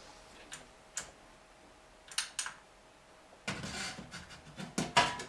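Metal top cover of a Marantz PM350 amplifier being handled and lowered onto the chassis: a few faint clicks, then, about three and a half seconds in, scraping and rustling with sharp clicks of sheet metal seating.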